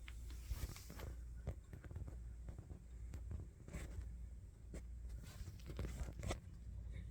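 Faint, irregular clicks, rustles and scrapes, as of something being handled, over a low steady hum. No motor is heard running.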